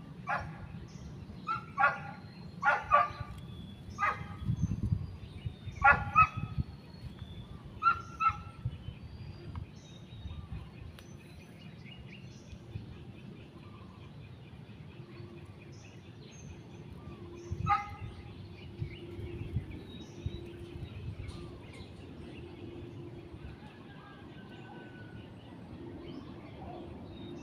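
A dog barking in short single and double barks, several in quick succession over the first eight seconds and one more later, with small birds chirping faintly.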